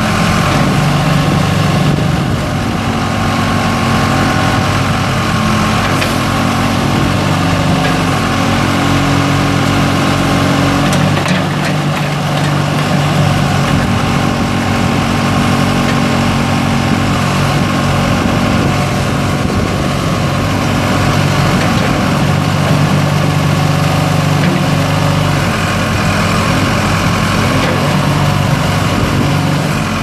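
The Case 4T-390 four-cylinder turbo diesel of a 1997 Case 580 Super L backhoe runs steadily while the backhoe boom and bucket are worked. Its note shifts slightly at several points.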